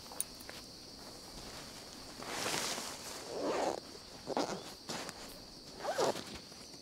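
Nylon fabric rustling and swishing in four or five strokes as a stuff sack is packed and pulled shut by hand, over a steady high insect buzz.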